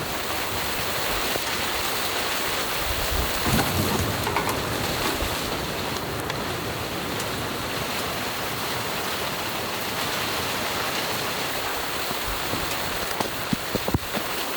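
Steady patter of precipitation falling on a tent, an even hiss, with a few sharper taps near the end.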